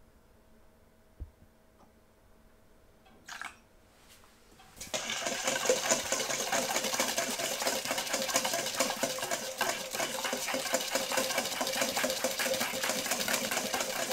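Wire whisk beating a thin egg, sugar and milk mixture in a mixing bowl: fast, steady strokes with the wires rattling against the bowl, starting about five seconds in.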